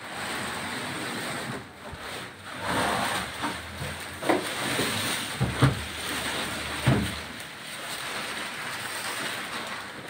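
Cardboard shipping carton scraping and rustling as it is lifted up off a washing machine wrapped in a plastic bag, with a few dull knocks in the second half.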